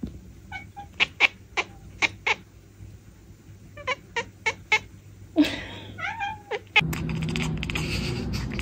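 Calico cat chattering: short, sharp chirping clicks in small quick groups, then a longer call whose pitch bends up and down. Near the end the sound changes abruptly to a steady background hiss with fast fine clicking.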